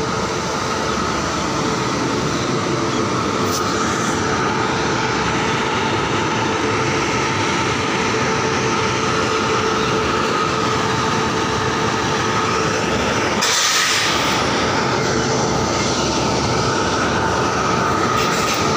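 Sampoorna Kranti Express passenger train running on the rails, heard from inside a general-class coach: a steady rumble of wheels on track with a thin high whine. There is a brief rush of noise about thirteen and a half seconds in.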